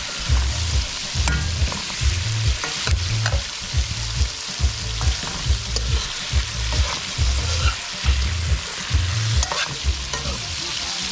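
Boiled sweet-potato cubes frying with onion and garlic in a metal wok-style pan, sizzling steadily while a metal spoon stirs and scrapes through them, knocking against the pan about twice a second.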